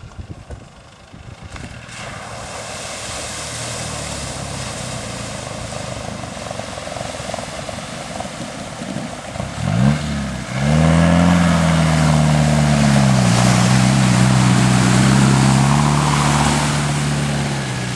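Land Rover Defender driving through a river ford: its engine runs under a rush of splashing water, then about ten seconds in a louder engine note comes in, revving and holding with small rises and falls in pitch as the vehicle ploughs through the water.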